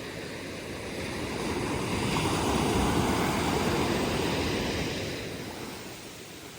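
Ocean surf: a wave swells, breaks and washes up the beach, loudest about halfway through, then draining away.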